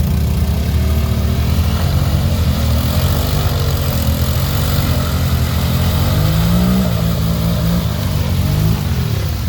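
Off-road vehicle engine revving under load as it drives through a mud hole, its pitch wavering up and down as the throttle is worked.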